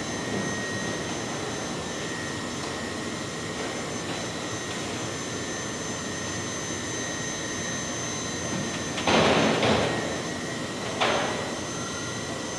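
Steady running noise of industrial machinery in a large plant hall, with a constant thin high whine. Two louder bursts of noise stand out, a longer one about nine seconds in and a short one about eleven seconds in.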